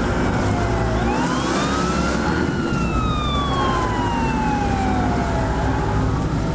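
Ambulance siren wailing: one rise in pitch over about a second and a half, then a long slow fall over about three seconds, over steady traffic noise.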